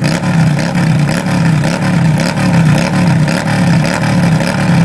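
Honda Shadow 600's V-twin engine revved in repeated throttle blips, its pitch rising and falling over and over. It runs through a Roncar Scorpion 2Way exhaust with the valve open to the loud sport outlet.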